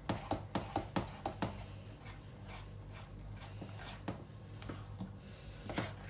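Wooden spoon stirring a thick flour batter in a stainless steel saucepan, knocking and scraping against the pan several times a second for the first second and a half, then more slowly, with a few more knocks near the end. A faint steady low hum underneath.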